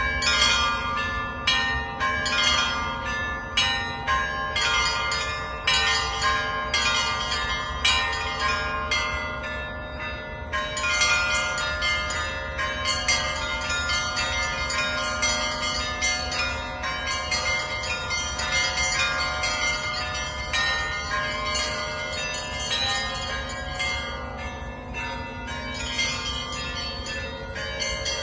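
Russian Orthodox church bells in a festal peal, rung by one bell-ringer: quick strikes on the smaller bells over the lasting hum of the larger ones. The strikes stand out clearly for about the first ten seconds, then merge into a denser, continuous ringing.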